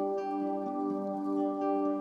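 Background music of long held tones, with no aircraft sound heard.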